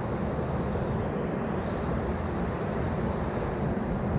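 River rapids rushing steadily around a raft, with a low rumble of wind on the microphone.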